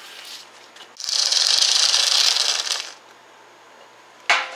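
Hand-pumped suction gun ('super sucker') drawing fluid out of a Tecumseh lawn-mower engine through a metal tube: a rattling hiss for about two seconds, then a short sharp sound near the end.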